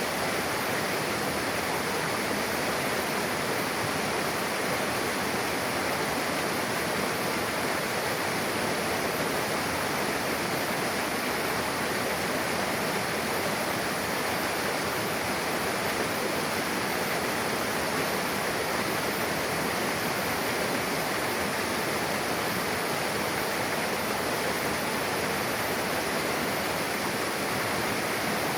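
Mountain river rushing over rocks where two streams merge: a steady, unbroken water roar.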